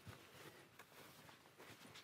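Faint footsteps of a hiker walking on a hill path: a few soft steps, roughly one every half second or so, over near-quiet outdoor air.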